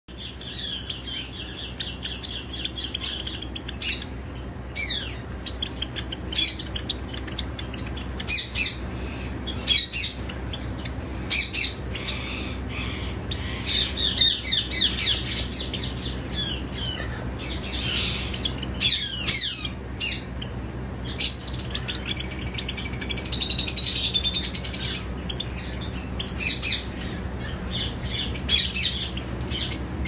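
A small caged flock of Java sparrows chirping, with short sharp calls coming one after another. There is a denser run of rapid clicking notes a little past the middle.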